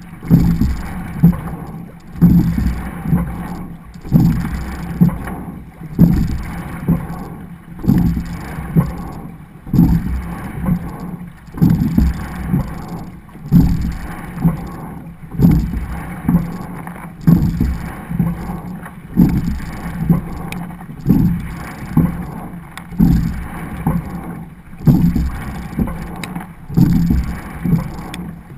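Rowing double scull under way: water rushing along the hull in a surge with each stroke, with a sharp knock at each one, about one stroke every two seconds.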